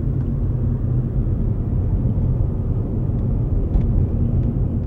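Steady low rumble of a car heard from inside the cabin: engine and road noise.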